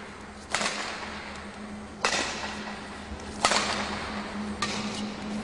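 Badminton racket striking a shuttlecock: three sharp cracks about a second and a half apart, each ringing out briefly in the hall, then two fainter hits near the end.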